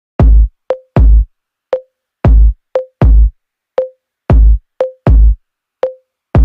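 Electronic music beat: deep, heavy drum-machine kick drums in pairs, with a short, higher pitched percussive tap between them, and no melody or voice yet.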